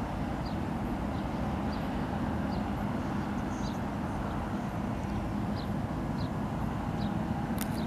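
Steady low rumble of ships' engines across the water, with a constant humming tone in it. Faint high chirps recur every second or so, and a sharp click comes near the end.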